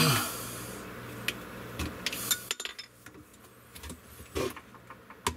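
Metal tools and plastic plumbing parts clinking and knocking under a sink during pipe work: a loud knock at the start, then scattered sharp clicks and taps. A steady low hum stops about halfway through.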